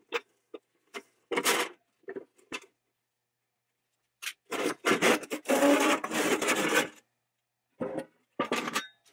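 Short metallic clicks and knocks as the sheet-metal cabinet of a 1940s Auto-Lite spark plug cleaner is handled. Then about three seconds of loud metal-on-metal scraping and rattling as the inner box is worked out of the housing, followed by a few more knocks.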